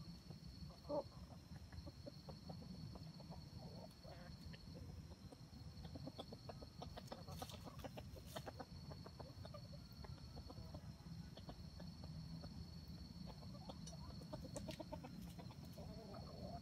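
Wild junglefowl clucking quietly as they forage, with one louder short call about a second in. A steady high insect drone runs underneath.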